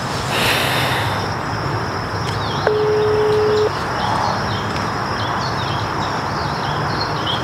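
A mobile phone's ringback tone sounds once, a steady tone for about a second, as an outgoing call rings before it is answered. Birds chirp over a steady outdoor hiss.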